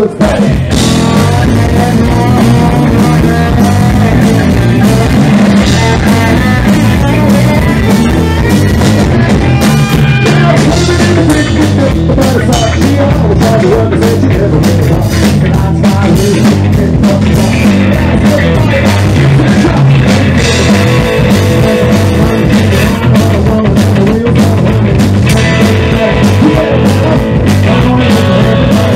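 Southern roots rock band playing live: electric guitars, bass guitar and drum kit in a steady rock groove.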